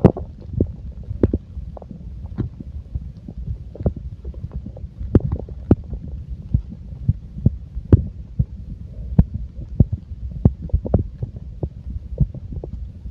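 Stomach gurgling: a continuous low rumble with many irregular sharp pops and gurgles, a few every second.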